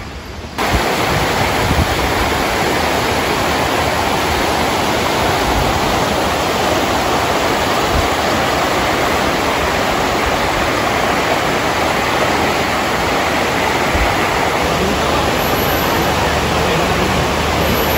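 Shallow, rocky river rushing over stones in rapids: a steady, even noise that starts abruptly about half a second in.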